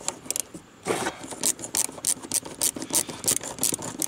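A screwdriver turning a screw out of a metal license plate light housing: a run of short scraping clicks, about four a second, from about a second in.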